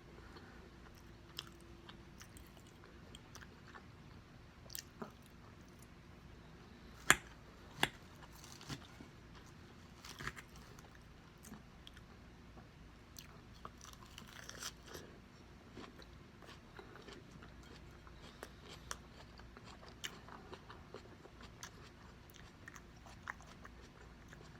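A person chewing and biting food close to the microphone, with scattered soft mouth clicks and two sharper, louder clicks a little after seven seconds in.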